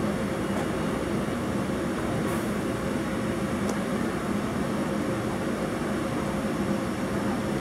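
SEPTA Silverliner V electric multiple-unit train humming steadily at the platform as it gets ready to depart, a constant mechanical drone with a faint steady tone.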